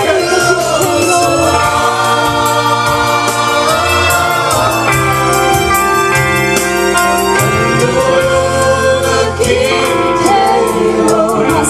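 Group worship singing over amplified band music: voices sing a gospel-style song together over held keyboard chords, bass and cymbals from the loudspeakers.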